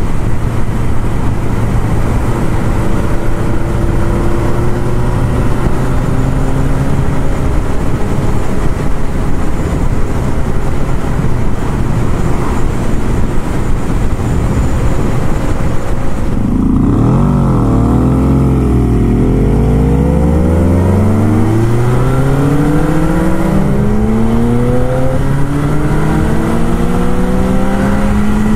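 Vintage motorcycle engine at riding speed under heavy wind rush. About halfway through the wind eases as the bike slows, then the engine note climbs in several rising sweeps as it accelerates and shifts up through the gears.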